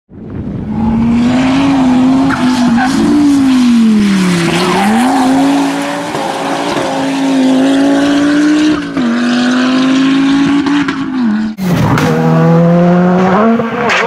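Rally car engines at full throttle, the pitch climbing and dropping with gear changes and lifts off the throttle. About eleven and a half seconds in, the sound cuts abruptly to a second rally car accelerating.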